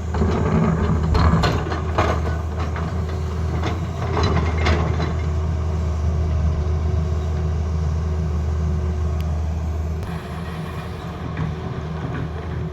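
Tata Hitachi excavator's diesel engine running steadily under work, with louder spells in the first couple of seconds and again about four seconds in, and easing off a little near the end.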